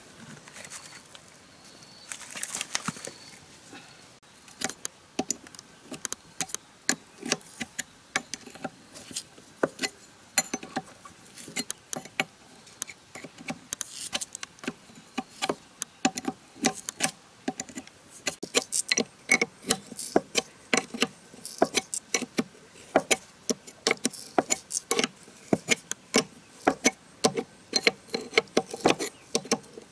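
Metal hand tools clinking and knocking on a car-wash pressure-washer pump as its head is unbolted with a spanner: a long run of sharp, irregular clicks and knocks that grows busier and louder in the second half.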